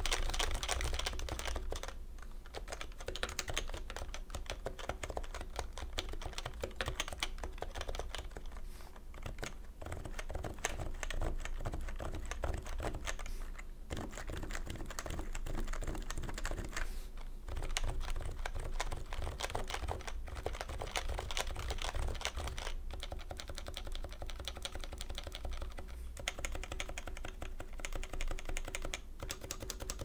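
Continuous typing on a stock, unmodified HHKB Pro 2 keyboard with Topre 45 g electrocapacitive switches and blank PBT keycaps, on a desk mat: a dense, steady run of key strokes broken by a few brief pauses.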